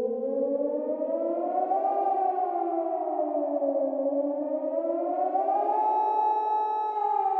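Air-raid siren wailing with two tones sounding together, its pitch sweeping slowly: up for about two seconds, down, then up again and held near the top before starting to drop near the end.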